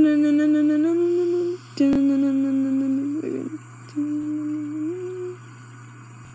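A person humming three long held notes, the first and last each stepping up in pitch partway through, over a steady low hum.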